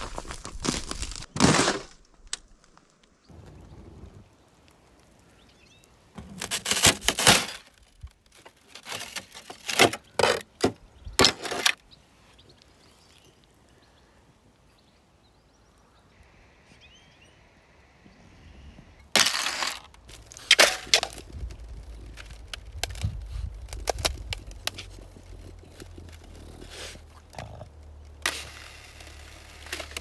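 Thin sheets of puddle ice cracking and shattering, with broken plates clinking and clattering together, in several separate bursts with a quiet spell in the middle.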